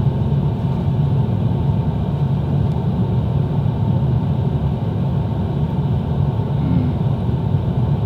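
Steady low background rumble with no change in level or pitch.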